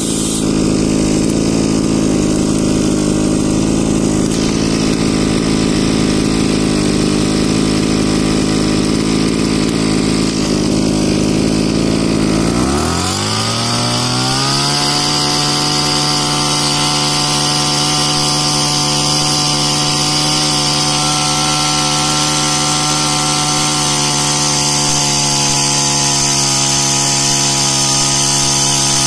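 Small engine driving a power sprayer pump, running steadily, then speeding up about a third of the way in and holding at the higher speed. From then on there is a hiss of water forced through the spray gun.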